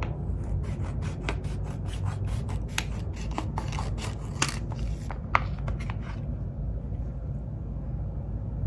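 Scissors snipping open a sheet-mask packet: a run of sharp snips and crinkles over the first six seconds or so, then only a faint low hum.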